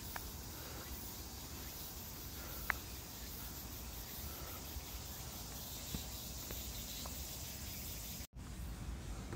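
Steady background hiss of outdoor ambience with a few faint clicks. The sound cuts out completely for an instant near the end.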